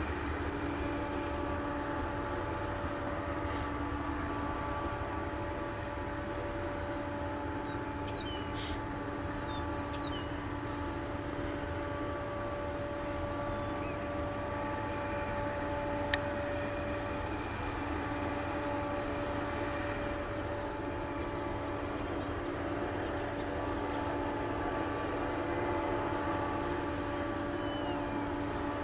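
Empty tank cars of a freight train rolling past: a steady rumble of steel wheels on rail, with a steady hum of several tones over it. A single sharp click comes about halfway through.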